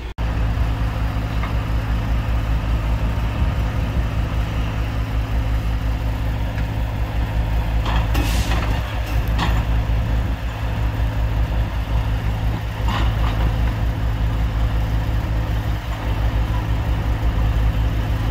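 Skid steer loader's diesel engine running steadily at a low, even pitch while it moves a railroad wheel truck along the rails, with a few brief sharp noises over it.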